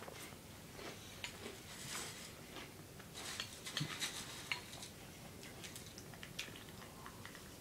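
Dry Honey Nut Cheerios rustling and clicking in a bowl as fingers dig into them and scoop out a handful. The small clicks come thickest about three to four and a half seconds in.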